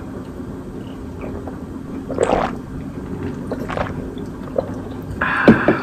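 Beer being drunk from cans: gulping and swallowing, with a short louder rush of noise near the end.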